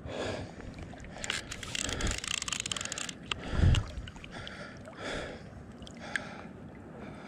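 Water sloshing and lapping close by while a trout is played, with a run of rapid clicking from a fly reel's ratchet as line is wound in about a second in, and a dull low thump near the middle.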